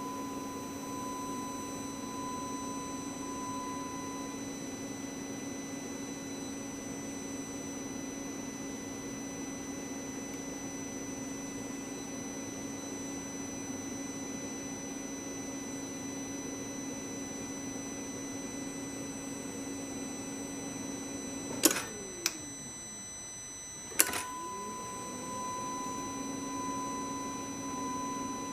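Electric fuel pump running with a steady hum while priming the diesel fuel system after a filter change. About 22 seconds in it cuts off with a click and winds down, then a couple of seconds later another click and it spins back up to the same steady hum: the pump cycling off and on.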